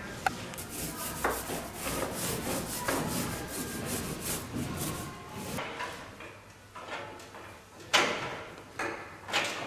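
Brush scrubbing back and forth over a riveted metal wall panel, several quick strokes a second, dying away after about five seconds; a couple of sharp knocks follow near the end.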